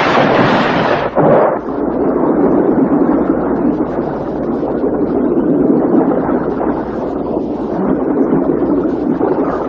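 Hissing splash of a scuba diver rolling backward into the sea, which gives way sharply about a second in to the muffled underwater rumble of bubbles and churning water.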